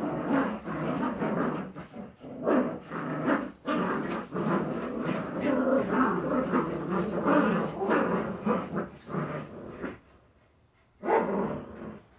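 A litter of Jagdterrier puppies growling as they tug at a rag together, with many short bursts overlapping. They go quiet for about a second near the end, then start up again.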